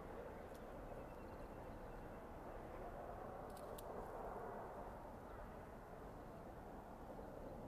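Distant diesel railcar running along the line, heard only as a faint, steady rumble. Two faint clicks come about halfway through.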